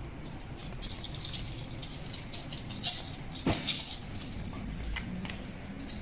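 Shiba Inu dogs' claws clicking and pattering on a wooden floor as they play, with one louder knock a little past halfway.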